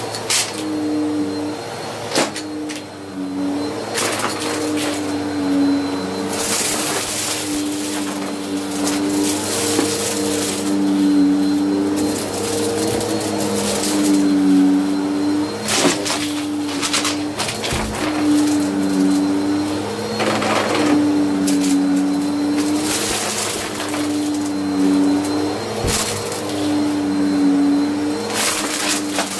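Bissell CleanView upright vacuum running on carpet. Its motor hum dips slightly in pitch and recovers about every two seconds with the push-pull strokes. Small debris crackles and crunches up through the nozzle into the dirt cup at intervals.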